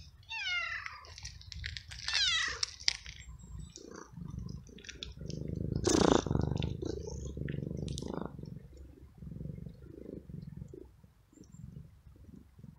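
Cat meowing, with one loud meow about six seconds in, over a low rumble. A run of high, quickly falling chirps comes twice in the first three seconds.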